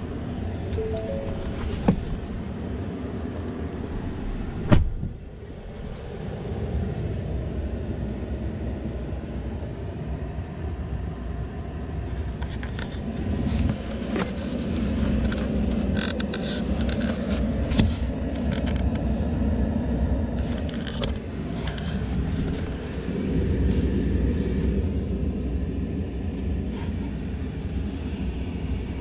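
Electric Ford F-150 Lightning pickup driving, a steady rumble of tyre and road noise with no engine note. There is a sharp thump about five seconds in and scattered clicks in the middle stretch.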